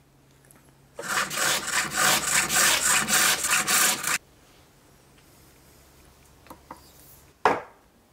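Hook tool shaving wood from a bowl blank spinning on a pole lathe: a dry scraping cut that starts about a second in, runs for about three seconds in quick pulses, and stops abruptly. A single short knock near the end.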